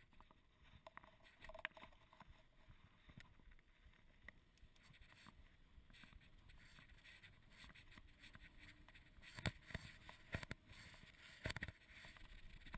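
Faint rolling and rattling noise of a mountain bike on a paved road, picked up by a handlebar-mounted GoPro Hero 2, with a few sharp knocks from the bike near the end.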